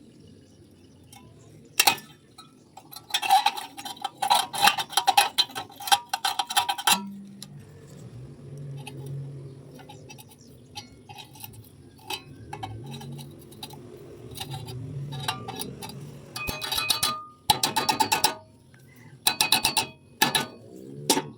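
Welding work: several bursts of rapid crackling clicks lasting one to four seconds each, with a low steady hum in the gaps between them.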